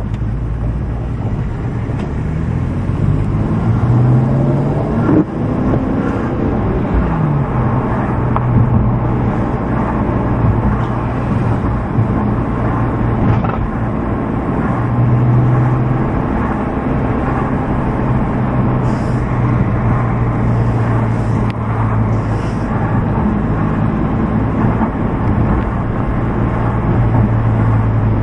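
Car engine and road noise heard from inside the cabin while driving. The engine note rises as the car speeds up a few seconds in, drops about seven seconds in, then runs fairly steadily.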